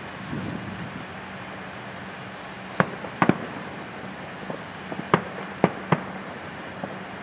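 Aerial firework shells bursting in a string of sharp bangs: two close together about three seconds in, then three more around five to six seconds, with fainter pops between.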